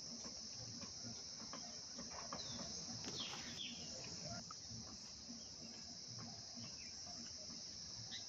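Steady, high-pitched insect chorus, a continuous shrill buzz, with a few short falling chirps about three seconds in.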